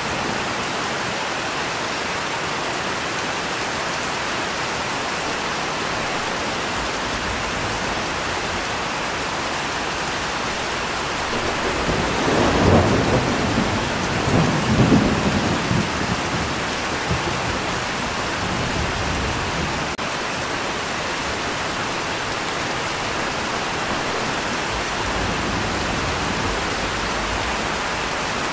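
Steady rain falling, with a roll of thunder rising about twelve seconds in. It rumbles in two swells over some five seconds before fading back into the rain.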